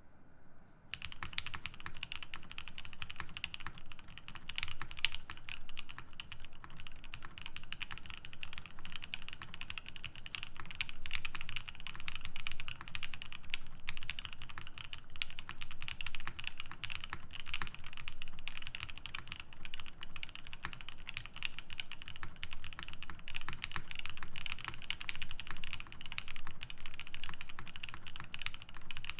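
Steady, fast typing on a Matrix Noah mechanical keyboard with lubed EV-02 switches, a UHMWPE plate and GMK keycaps: a dense, unbroken run of keystrokes that starts about a second in.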